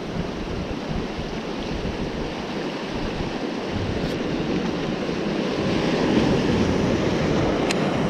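Ocean surf washing and breaking over shoreline rocks, with wind buffeting the microphone; the wash swells louder about six seconds in. A few light clicks near the end.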